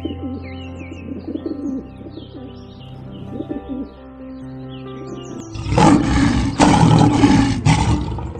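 Birds chirping high, with low cooing calls, over steady background music; then, about five and a half seconds in, a large animal roars loudly in three or four rough pulses.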